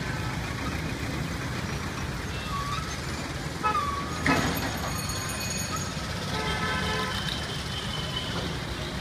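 Mixed road traffic: engines running low and steady, with a few short high-pitched toots and a sharp knock a little past four seconds in.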